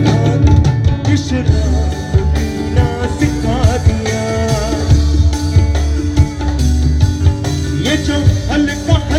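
Pop song with a heavy, steady bass beat and instrumental backing, and wavering, ornamented melody lines sung over it.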